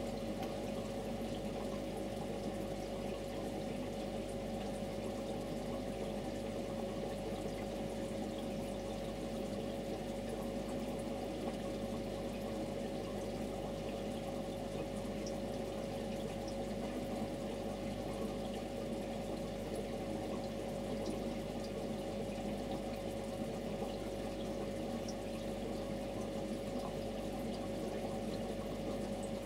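Aquarium filter running: water trickling and bubbling steadily over a constant hum.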